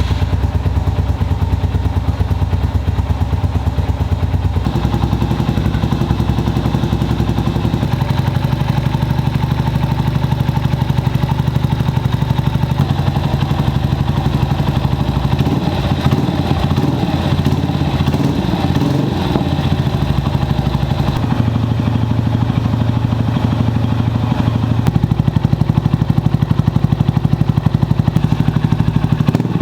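Honda FTR223's air-cooled single-cylinder engine idling just after a top-end overhaul, its idle speed shifting a few times. It runs without the abnormal engine noise, which the overhaul has cured.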